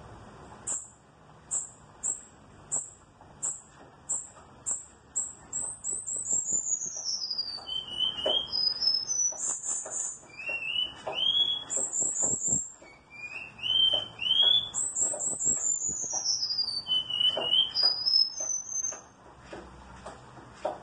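Cuban bullfinch (negrito) singing: a run of short high notes that speeds up, then a long falling slurred phrase, then a varied string of falling trills and rising whistles, fading out near the end.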